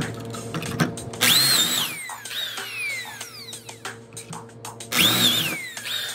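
Electric drill boring dowel holes through the steel guide bushing of a self-centering doweling jig into a wooden board, in two short bursts. In each burst the motor whine rises quickly as the trigger is pulled, then falls away as it spins down.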